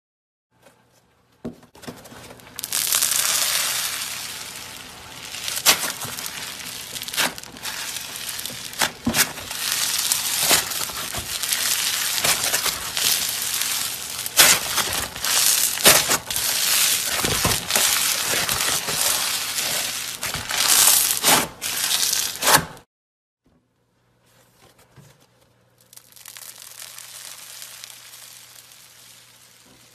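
Floam slime, full of tiny foam beads, squeezed and stretched by hand: a dense crunchy crackling with many sharp pops. It cuts off suddenly about 23 seconds in, and a quieter crackling starts again a few seconds later.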